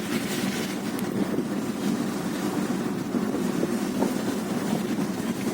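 Steady engine drone with wind rushing over the microphone, as from a moving vehicle.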